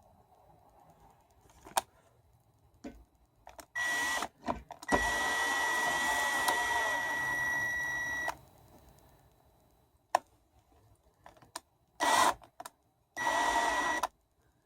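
A small electric motor running in four bursts that start and stop abruptly, one about three and a half seconds long and three shorter ones, each with a steady high whine; a few sharp clicks between them.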